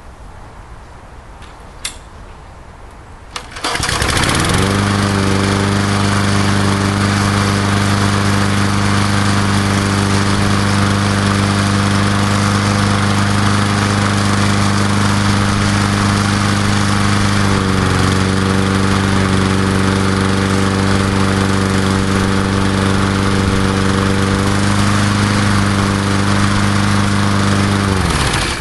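A Murray Dynamark 22 mower's 3.75 hp Briggs & Stratton engine is warm-restarted about 15–20 minutes after its last run. It catches at once about three and a half seconds in. It then runs steadily at speed, with a brief dip about halfway through, and shuts off just before the end.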